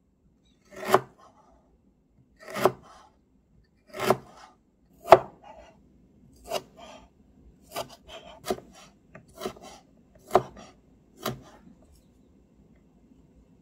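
Miniature kitchen knife slicing firm yellow food into thin strips on a small wooden cutting board: about ten separate cuts, each a short knock of the blade against the board. The first four are louder and about a second and a half apart, then the cuts come softer and quicker, stopping shortly before the end.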